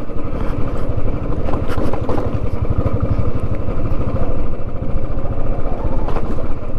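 A vehicle's engine running steadily while driving, with a fast, even throb.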